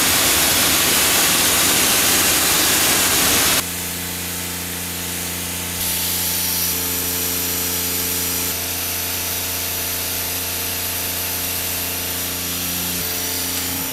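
Water spray hitting a coated alloy wheel, a loud even hiss. About three and a half seconds in, the hiss drops and a steady hum of several held tones takes over with lighter spray noise beneath it.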